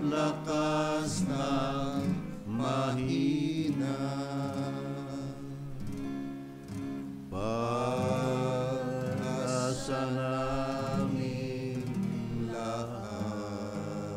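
A small group of voices singing a religious song to an acoustic guitar, with a short break between phrases about halfway through.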